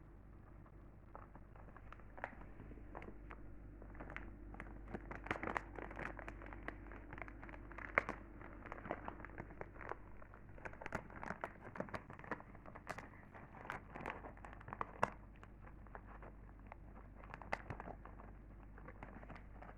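Irregular crisp crackles and clicks, coming thick in the middle stretch, from a cat getting at potato chips.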